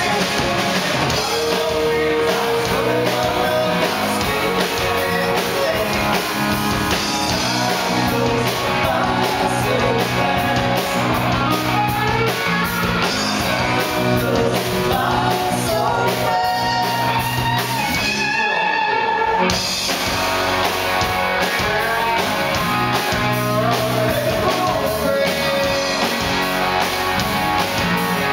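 Live rock band playing with singing: electric guitars, bass, drums, and violin. About two thirds of the way through the band stops for about a second, leaving a few held notes ringing, then comes back in.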